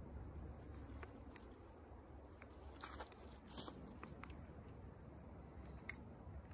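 Faint crunching and scattered small clicks of hands working a rebar trap stake in wet bank mud, twigs and dead leaves, with one sharper click about a second before the end.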